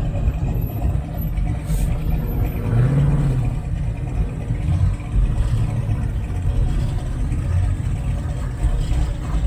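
Engines of classic American muscle cars rumbling as they pull slowly past in a line, with one engine's pitch rising and falling briefly about three seconds in.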